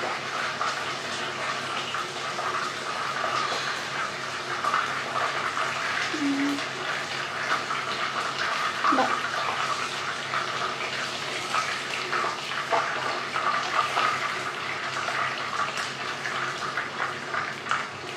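Flour-coated chicken pieces deep-frying in hot oil in a pot: a steady sizzle with crackling spatters.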